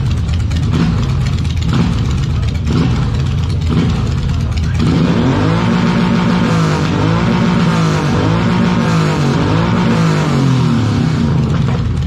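Large cruiser motorcycle engine idling, then from about five seconds in revved again and again, rising and falling in pitch several times before settling back near the end.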